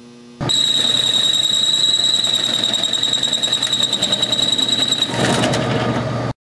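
Fly cutter in a drill press cutting a circular hole in sheet metal, with a steady high-pitched squeal over the cutting noise. About five seconds in the squeal stops and a rougher cutting chatter takes over until the sound cuts off.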